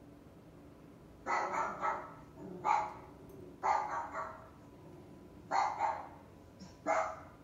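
Recorded puppy barks played from an Amazon Alexa smart speaker in answer to "what sound does a puppy make?": short high barks in five bursts, some in quick pairs, spread over about six seconds.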